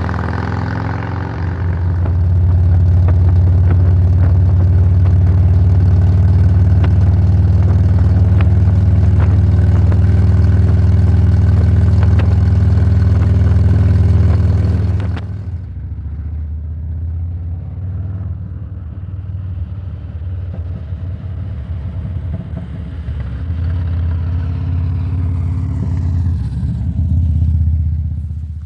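Harley-Davidson Electra Glide Ultra Classic trike's V-twin engine running on the road. It pulls harder about two seconds in and holds for some twelve seconds. It then eases off and runs quieter, building again near the end before cutting off suddenly.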